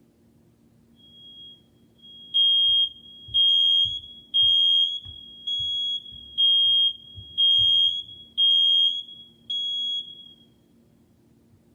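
Smoke alarm triggered for a test, sounding a shrill high-pitched beep about once a second. A fainter steady tone comes in first, then about eight loud beeps ride over it before the alarm stops.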